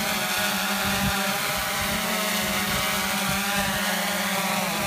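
DJI Phantom 2 quadcopter hovering low: the steady whine of its four electric motors and propellers.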